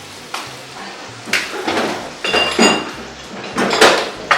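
Dishes and cutlery clattering in a kitchen: a series of separate knocks and clinks, one ringing briefly about two and a half seconds in, with the loudest knock near the end.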